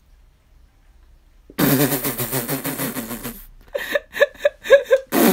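A man making loud snoring noises with his voice, imitating a mouth breather asleep: a long rasping snore starting about a second and a half in, a run of short choppy snorts, then another long snore near the end.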